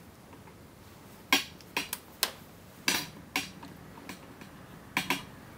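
Sharp plastic clicks and taps, about eight in all and unevenly spaced, from a USB cable and a small programmer being unplugged, handled and set down on the bench mat.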